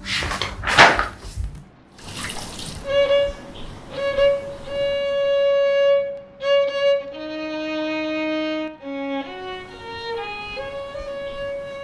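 A violin playing a slow melody of long, held notes, starting about three seconds in. Before it comes a couple of seconds of hissing, splashing water noise.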